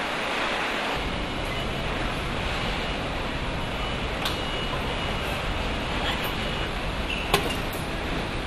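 Car assembly line machinery: a steady din of air and motors, with a deeper rumble coming in about a second in, a faint high tone on and off in the second half, and a sharp click near the end.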